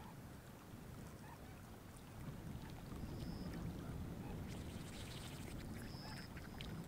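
Faint steady low rush of the incoming tide flowing over the river flats, a little louder from about two seconds in. Two faint short high peeps come near the middle and near the end.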